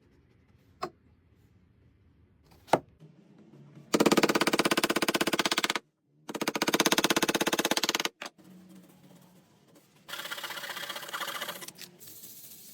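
A handheld power tool cutting or working wood in three short bursts of a fast, rattling buzz. The first two bursts are loud and the last, near the end, is quieter. Two sharp clicks come before them.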